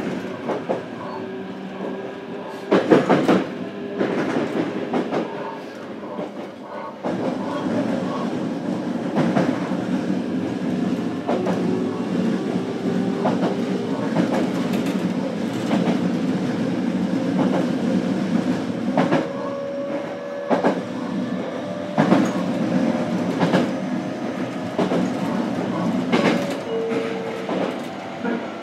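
Running sound inside a JR Kyushu BEC819 DENCHA battery-electric train car as it travels: a steady rumble of wheels on rail with sharp rail-joint clicks every second or few, and a faint whine. The running noise grows louder about seven seconds in.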